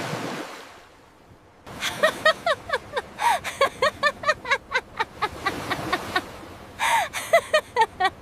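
A short whoosh, then a rapid run of short, high-pitched vocal cries, several a second, each rising and falling in pitch, with a brief pause about two-thirds of the way through.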